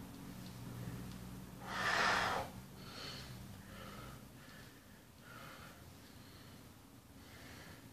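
A man breathing hard from exertion mid-squat set: one loud, forceful exhale about two seconds in, then a run of softer, regular breaths.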